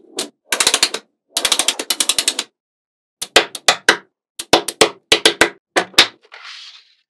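Small neodymium magnetic balls clicking sharply against each other as rows and sheets are pressed and snapped together. The clicks come in fast rattling runs at first, then in quicker separate groups, with a short soft hiss near the end.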